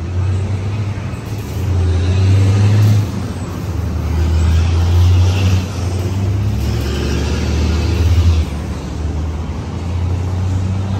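Cammed V8 of a Chevrolet Impala SS running with a deep, loud exhaust rumble that swells louder a few times, heard right after the muffler shop has finished work on its exhaust.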